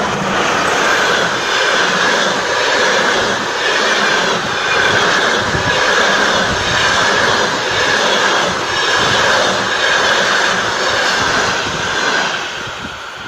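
Passenger train hauled by a ChS7 electric locomotive passing close at speed: a loud, steady rush of coach wheels running on the rails, easing off near the end.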